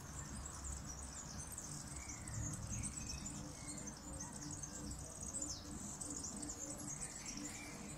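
Small birds chirping and singing continuously in quick, high-pitched phrases, over a faint low background rumble.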